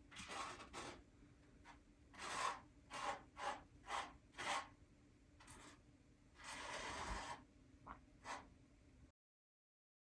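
Scraping strokes of a hand tool working a surface, each short and irregular, about two a second in a run, with one longer stroke later on; the sound cuts off abruptly about nine seconds in.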